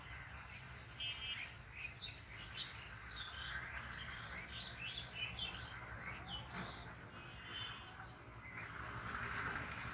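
Birds chirping outdoors: a busy run of short, quick calls through the middle, growing into a harsher, noisier calling near the end.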